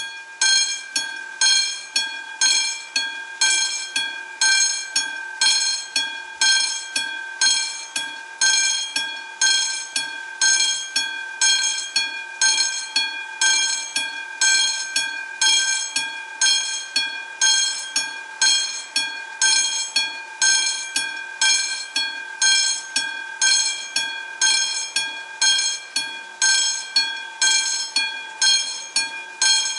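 Classic mechanical level-crossing bell of a Czech AŽD 97 crossing, starting abruptly and striking steadily about twice a second, each strike ringing on: the warning that a train is approaching and the barriers are lowering.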